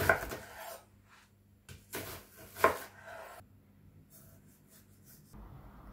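Chef's knife cutting vegetables on a wooden cutting board: a few soft knocks and scrapes of the blade against the board.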